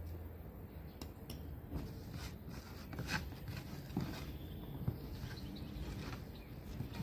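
Pieces of raw lamb tail fat being pushed together by hand on a wooden cutting board, a few soft knocks over a low outdoor rumble.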